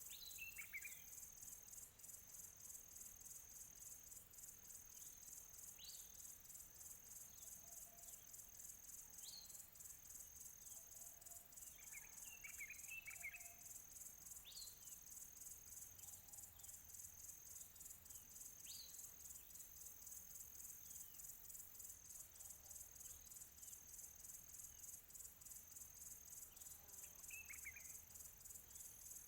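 A steady high-pitched insect chorus with a fine rapid pulse, like crickets trilling, with songbirds chirping over it: single sharp downward-sweeping notes every few seconds and short bursts of chirps about twelve seconds in and near the end.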